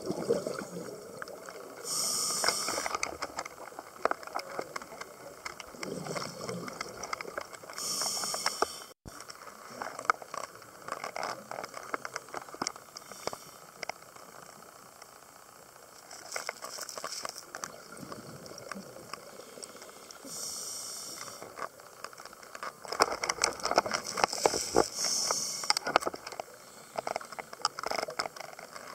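A scuba diver breathing through a regulator underwater: four short hissing inhalations, each followed by a long crackling, bubbling exhalation.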